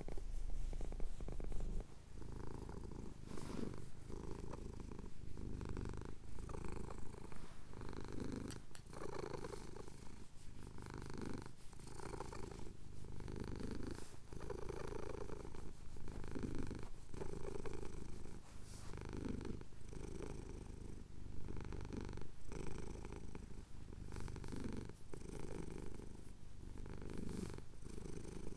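Domestic cat purring steadily, the purr rising and falling with each breath, about once a second, as the contented cat has its chin scratched.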